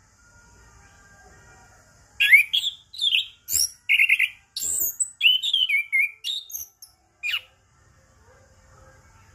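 Chestnut-capped thrush (anis kembang) singing a quick run of varied high notes, starting about two seconds in and stopping about seven seconds in.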